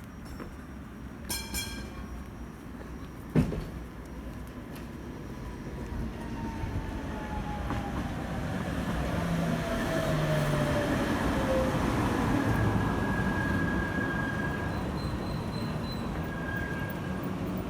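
A tram passing on the street: a rumble of wheels on rails that builds to its loudest about ten to thirteen seconds in, with a whine that falls steadily in pitch and thin high squeals from the wheels. Earlier there are two short ringing tones and a sharp knock, the loudest moment, about three seconds in.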